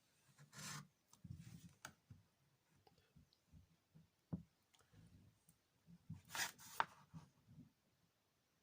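Faint rubbing and scraping with scattered light knocks, a few short scrapes standing out about a second in and again near the end.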